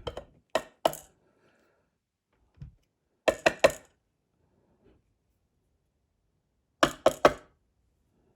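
Small metal lock parts and tools clinking and tapping on a hard surface while a Medeco lock is taken apart: two sharp clinks near the start, then two quick runs of about four clinks each, a few seconds apart.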